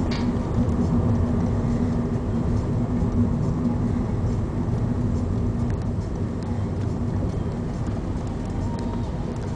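Engine and road noise of a car driving through city traffic, heard from inside: a steady low rumble, with a held hum that fades out about halfway through.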